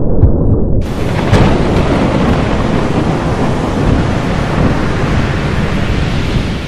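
Thunderstorm sound effect: a low, muffled rumble of thunder that about a second in opens into a loud, steady rush of heavy rain with a sharp crack of thunder, starting to fade right at the end.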